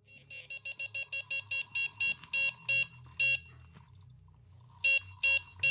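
Electronic carp bite alarm sounding a run: short beeps, about five a second, slowing to longer, spaced beeps, a pause of over a second, then beeps again about every half second. It is the sign of a fish taking line.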